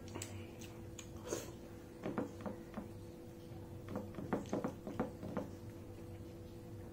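Close-miked eating sounds: wet chewing and lip smacks in short clusters, about two seconds in and again from about four to five and a half seconds. A steady low hum runs underneath.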